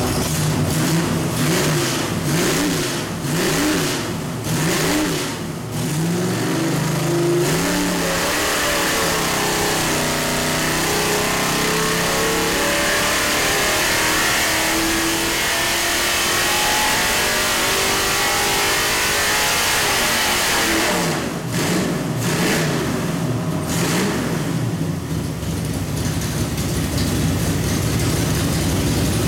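A 632-horsepower 427 small-block Chevy V8 with a four-barrel carburettor runs on an engine dyno. It is blipped a few times, then pulls under load for about thirteen seconds with its pitch climbing steadily. It drops back to a lower, uneven idle with a few more blips near the end.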